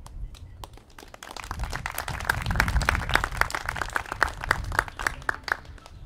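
A small audience clapping: it builds up about a second in, is at its fullest in the middle, then thins out to a few last scattered claps and stops near the end.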